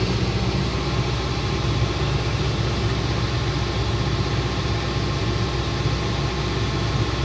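Excavator's engine running steadily, a deep, even drone.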